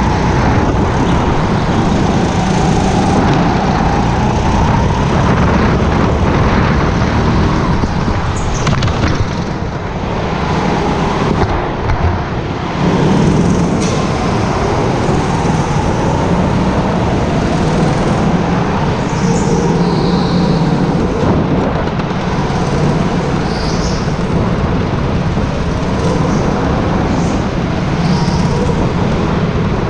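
Racing go-kart engine running hard, its pitch rising and falling as the kart speeds up and slows, with a short drop in loudness around ten seconds in. A few short high squeals come in the second half.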